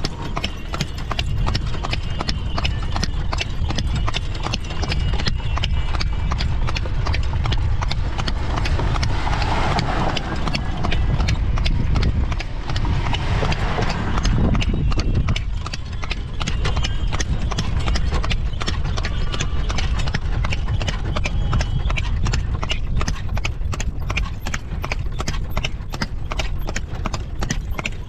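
Horse's hooves clip-clopping in a steady, even rhythm as it pulls a carriage, over a continuous low rumble.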